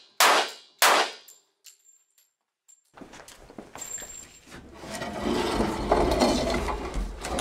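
Two .45 ACP handgun shots fired into a door, about half a second apart, each dying away quickly. From about three seconds in comes rustling and bumping as the door is handled.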